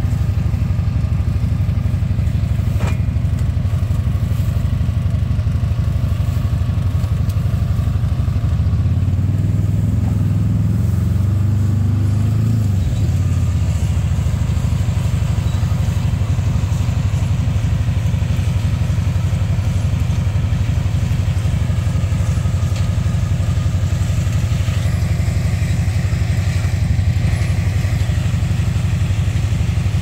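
Combine harvester engine running steadily with a deep, even rumble. About nine seconds in its note swells and climbs for a few seconds, then settles back.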